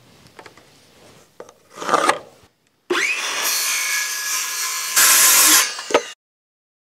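Cordless Makita circular saw spinning up with a rising whine, crosscutting a 12-inch-wide board, then winding down as the cut finishes. Before it, light clicks of the square being handled on the board and a short loud clatter about two seconds in.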